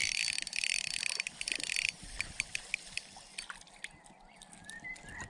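Spinning reel being cranked, a fast, dense mechanical whirr with rapid fine ticks for about two seconds, then slower scattered clicks as the winding goes on more gently.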